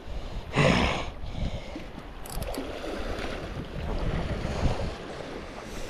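Wind blowing across the microphone over waves washing on a beach, with a louder rush of noise about half a second in.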